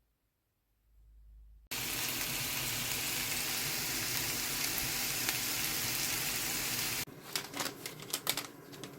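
Food sizzling in a hot frying pan: a steady sizzle that starts suddenly about two seconds in and stops about seven seconds in, followed by a few light clicks and taps.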